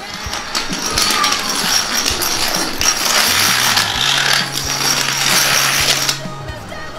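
Plastic dominoes toppling in long chains: a dense, rapid clatter of many small tiles knocking against each other, which dies down suddenly near the end.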